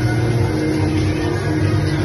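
Fountain show music with held low notes, over the steady rush of water pouring from an overhead fountain into its basin.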